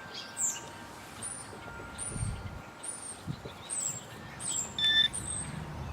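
A bird chirping over and over, short high chirps about twice a second. Near the end comes one short electronic beep from a metal detector.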